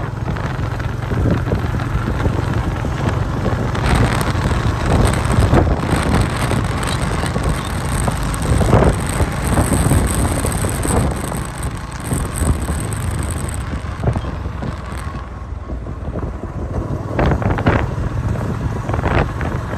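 Motorbike running along a road with wind buffeting the microphone: a steady low rumble under a rushing noise.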